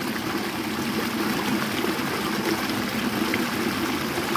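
River water flowing and trickling steadily over rocks.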